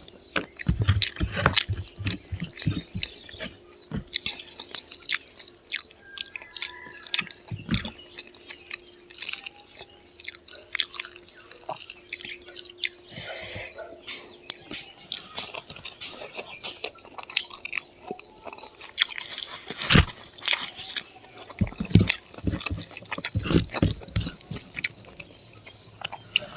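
Close-up chewing and biting of pork and rice, with irregular mouth clicks and smacks.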